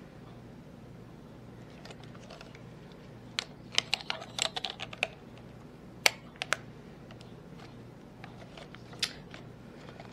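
Clicks and taps of a plastic camcorder being handled and its controls worked: a quick run of clicks from about three and a half to five seconds in, a few sharper clicks around six seconds, and another near nine seconds, over a faint steady low hum.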